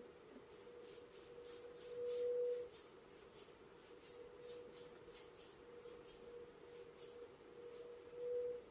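Quick scratchy rubbing strokes of a massage on skin and hair, about three to four a second, stopping near the end. A steady hum runs underneath and swells louder twice.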